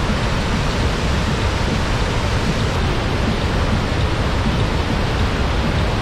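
The Nile rushing over the rock cascades at the head of Murchison Falls, forced through a narrow gorge: a loud, steady roar of white water.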